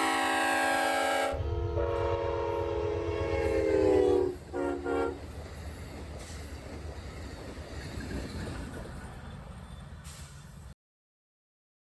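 A Nathan K5HL five-chime locomotive horn heard from a distance: one long blast that sags slightly in pitch, then two short blasts about four seconds in. After that come the low rumble of the passing train and wind on the microphone, until the sound cuts off suddenly near the end.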